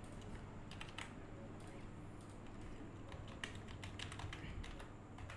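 Faint typing on a computer keyboard, keystrokes coming in short scattered runs.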